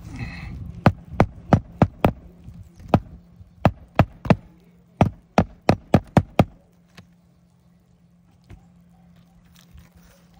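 Hammer tapping a roofing nail under a lifted architectural asphalt shingle, about three quick strikes a second, to drive it flush. The strikes stop about six and a half seconds in.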